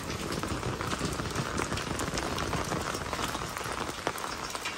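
Heavy rain pouring onto a flooded concrete yard: a steady hiss dotted with the patter of drops hitting standing water.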